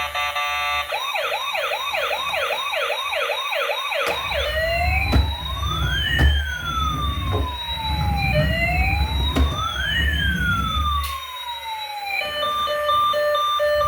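Electronic toy emergency-vehicle siren cycling through its sounds: a fast yelp about three times a second, then a slow up-and-down wail, then a steady on-off beeping pattern near the end. A low rumble runs under the wail.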